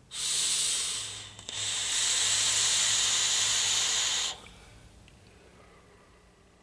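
Airy hiss of a hit on a mechanical-mod vape with a rebuildable dripping atomizer: a hiss of about a second, a short break, then a longer hiss of nearly three seconds as the vapor is drawn and blown out.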